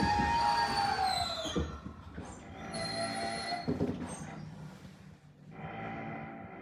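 Tobu 20400-series train's Toyo GTO-thyristor VVVF inverter whining, its tones falling in pitch during the first second and a half as the train slows to a stop. After that come shorter spells of steady ringing tones.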